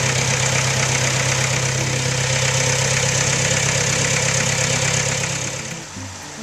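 Thomas portable band sawmill running: a steady engine hum under the hiss of the band blade, falling away about five and a half seconds in.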